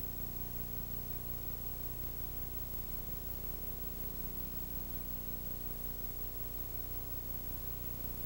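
Steady hiss with a low electrical hum made of several steady tones, and no other sound. This is the noise floor of a soundtrack copied over several generations of VHS tape.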